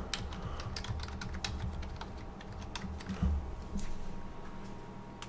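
Typing on a computer keyboard: a quick run of key clicks for about three seconds, then a few scattered keystrokes, with a soft low thump about three seconds in.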